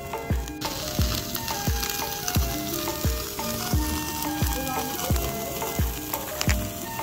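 Chicken pieces sizzling on a wire grill over an open wood fire, a steady hiss that starts about half a second in. Background music with a steady beat of low thumps plays throughout.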